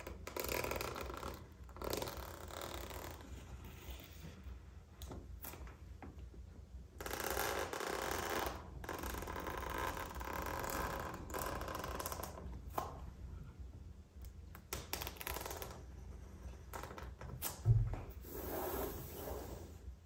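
Scissors cutting and a cardboard keyboard box being opened by hand: stretches of scraping and rustling with scattered sharp clicks, and a dull thump near the end.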